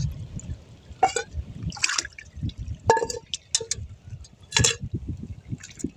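Seawater splashing and sloshing in short, irregular bursts, with a few sharper splashes, as mud crabs and blue crabs are rinsed by hand in the sea.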